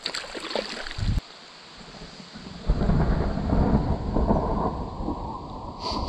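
A long, uneven rumble of thunder that comes in about two and a half seconds in and keeps rolling.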